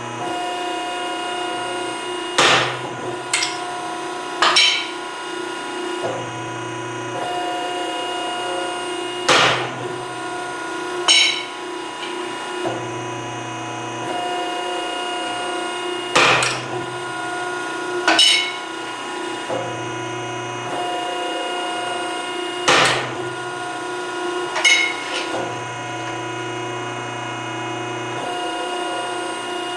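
Edwards hydraulic ironworker punching holes through steel plate. The pump motor hums steadily, and the punch goes through with a sharp bang four times, about every seven seconds. Each bang is followed by a lighter metallic rattle.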